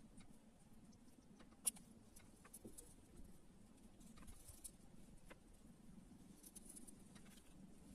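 Near silence with faint scattered clicks and taps of small plastic toy vehicles being handled, one sharper click a little under two seconds in.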